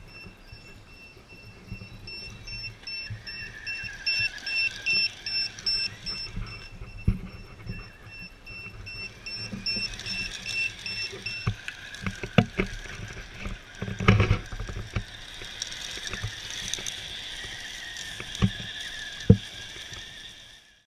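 Electric motor and gearbox of a radio-controlled Tamiya CC01 truck running on rubber tracks, whining up and down with the throttle. Rattles and several sharp knocks come as it bounces over rough ground, the loudest about fourteen seconds in.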